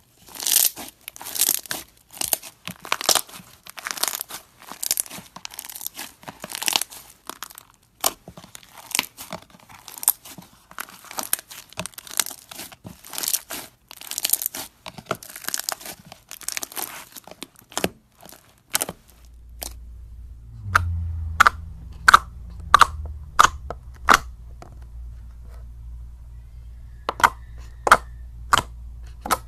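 Fingers squishing and folding a thick slime studded with coloured beads, giving a dense, irregular run of crunchy crackling. Partway through it changes to a low steady hum with a string of sharp, separate pops as fingers poke a glossy clear slime in a plastic tub.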